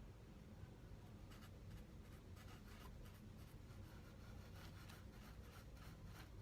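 Faint scratching of a makeup brush worked into a small pan of powder blush, a series of short brushing strokes that come more often in the second half.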